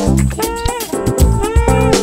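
Background music: an upbeat track with regular drum hits, a bass line and a melody that bends in pitch.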